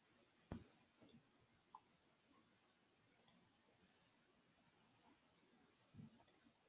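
Near silence broken by a few faint computer mouse clicks, the sharpest about half a second in and another about six seconds in.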